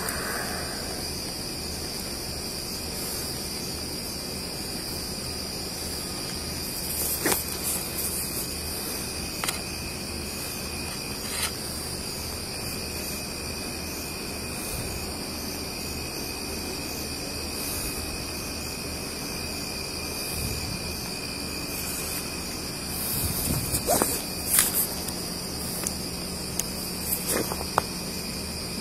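Night insects, crickets, chirring steadily at a high pitch. A few sharp clicks and rustles close to the microphone, loudest about seven seconds in and again around twenty-four seconds in.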